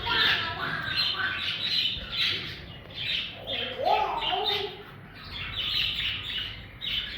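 Budgies (budgerigars) chirping and chattering: a dense run of short, quick chirps, with a lower sliding call about four seconds in.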